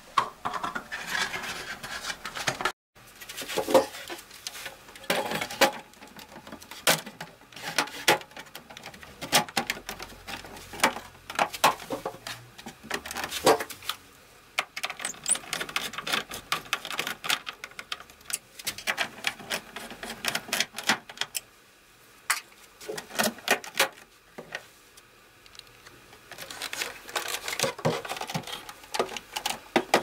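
Irregular clicks, knocks and scraping from handling the plastic and metal case of an HP all-in-one computer and driving its screws back in with a hand screwdriver.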